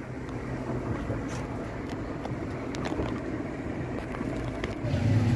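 Engine and road noise heard inside the cabin of a moving Suzuki van: a steady low drone, growing louder near the end.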